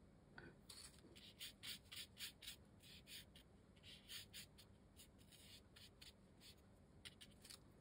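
Faint, short scratchy strokes of a paintbrush dabbing and rubbing wet paint onto watercolour paper, a few strokes a second, starting about a second in.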